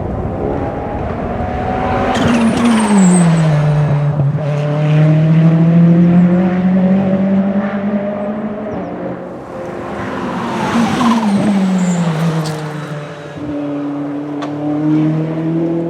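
Ferrari 488 GT3's twin-turbo V8 race engine at speed, passing twice: the note climbs in loudness and its pitch drops as the car goes by, about two seconds in and again about ten seconds in, then holds a steady note as it pulls away.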